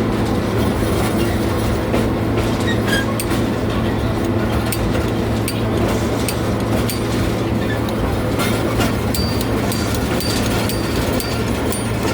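Park ride train running along its track, a steady low engine drone with clicks of the wheels over the rail joints. A few short high squeaks come in about three-quarters of the way through.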